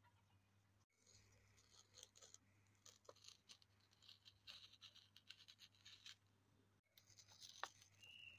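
Masking tape being peeled off the edge of a painted paper page: faint, scratchy crackling tearing in irregular spurts.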